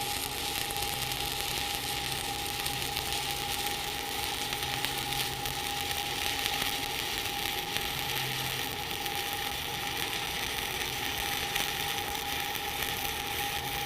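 Stick-welding arc sizzling and crackling steadily while a fill pass is run on a T-joint, with a faint steady whine throughout.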